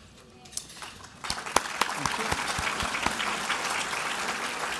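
Audience applauding. It starts about a second in with a few sharp claps and then runs on as steady clapping.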